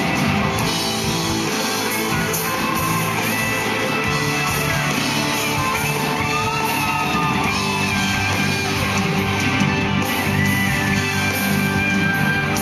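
Live band music with electric guitar played through a PA in a large hall, with a singer's voice over it.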